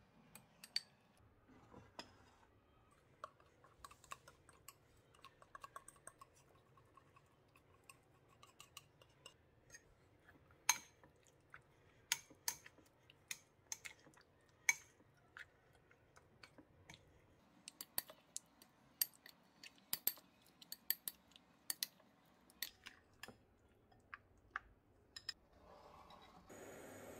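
A metal whisk and utensil stirring thick batter and chicken in a glass bowl, clinking against the glass in many sharp, irregular taps. A steady hiss starts near the end.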